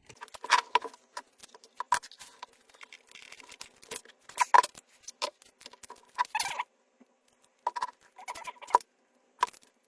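Irregular clicks, taps and short scrapes from hands and tools working a stack of lithium-ion cells loose from the battery pack's holder, with quiet gaps between the louder knocks.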